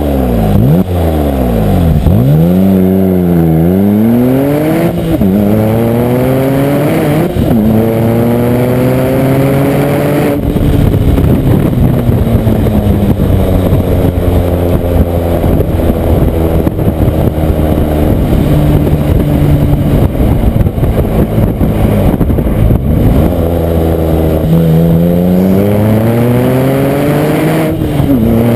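Porsche 911 Turbo (997) twin-turbo flat-six through an aftermarket MGmotorsport exhaust with manifolds, heard right at the tailpipe. A few quick throttle blips come first. The engine then pulls up through the gears with a drop in pitch at each upshift, holds a steady cruise, and accelerates again near the end.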